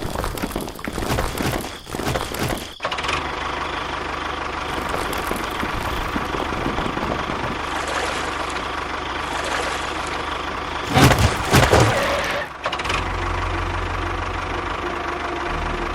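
A motor running steadily with a low hum. After a rough, noisy start it settles, gets louder and rougher for a moment about eleven seconds in, then changes abruptly to a deeper, stronger hum.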